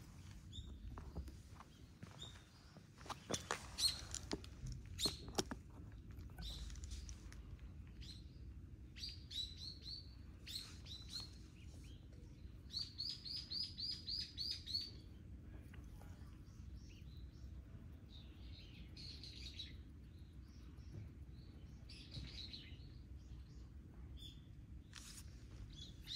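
Small birds chirping, some in quick runs of short, high, rising notes. A few sharp clicks come a few seconds in.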